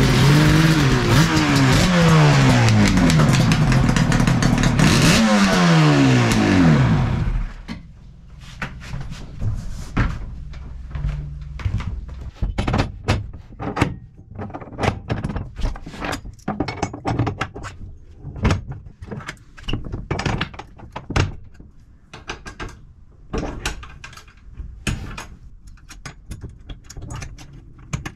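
Motorcycle engine revved in several rising and falling blips, then shut off about seven seconds in. After that come irregular metallic clicks, clanks and knocks as the bike's rear wheel is worked into a steel wheel-chock stand and pinned in place.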